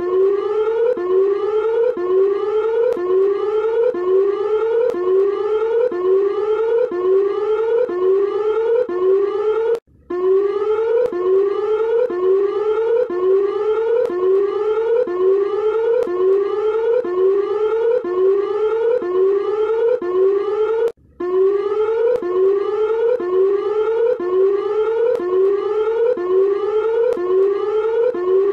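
Emergency alert alarm tone: a siren-like whoop sweeping upward over and over, a little over once a second. It breaks off for a moment twice, about 10 and 21 seconds in, and starts again the same way.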